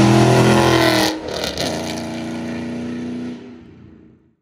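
Mustang GT's V8 exhaust, run through long-tube headers and an off-road H-pipe, sounding loud. Its note climbs slightly, drops sharply about a second in as the revs fall, holds a steadier lower note, then fades out.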